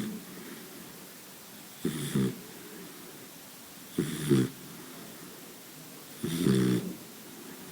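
Boxer dog snoring in a regular rhythm: three rough snores about two seconds apart, each lasting roughly half a second.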